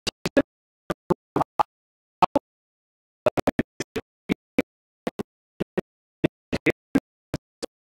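A man's voice cut into brief, broken snatches, with dead silence between them, as if passed through a heavy noise gate.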